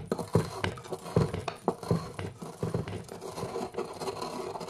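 Pestle crushing dried rosemary in a mortar: irregular knocks with scraping and grinding between them.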